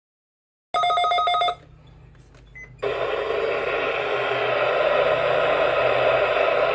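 NOAA weather radio receiver going off: a loud, rapidly pulsing electronic alert tone, like a ringing bell, lasting under a second, then after a short pause loud radio static with a low hum underneath.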